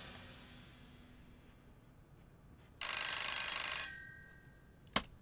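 Old-style desk telephone's bell ringing once for about a second, a bright, high ring. A single sharp click follows near the end.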